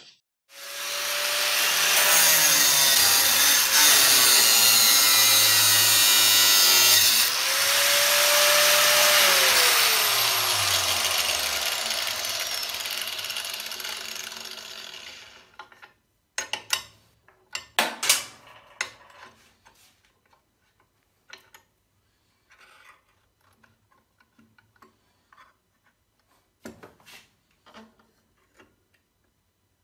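Makita angle grinder in a cut-off stand cutting through an 8 mm steel linear rail, with a short break about seven seconds in. It is then switched off and winds down with a falling whine over several seconds. After that come scattered clicks and knocks as the rod is handled and clamped in the stand's vise.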